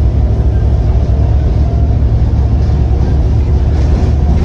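Volvo B7TL double-decker bus's six-cylinder diesel engine running steadily with a loud, even low rumble.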